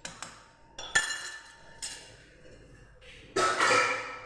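Metal kitchenware clinking and knocking: a sharp clink that rings on about a second in, then a louder scraping clatter of a pot or pan near the end.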